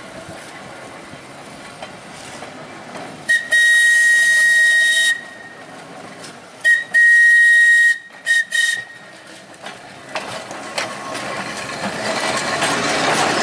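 Manx Electric Railway tram's whistle sounding a long blast of about two seconds, then a short toot, a blast of about a second and two quick toots, one high steady pitch with a hiss of air. Near the end the tram's running noise on the rails grows louder as it passes close by.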